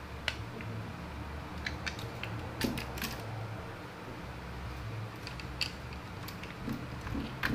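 Scattered light clicks and taps of a plastic-and-metal RC buggy chassis and a hex driver being handled on a work mat, over a low steady hum.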